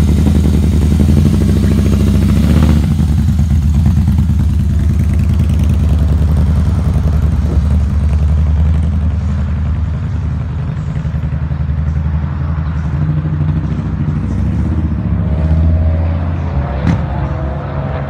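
Harley-Davidson motorcycle engine running steadily with a deep low note, easing off a little over the last few seconds. There is a single sharp click near the end.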